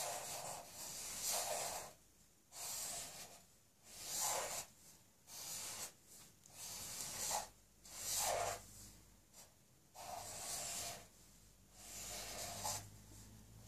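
Black felt-tip marker drawing on paper: a series of hissing scratches, one for each stroke, about eight with short pauses between.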